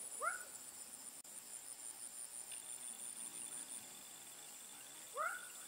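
Faint, steady high-pitched drone of insects, with two short rising animal calls, one just after the start and one near the end.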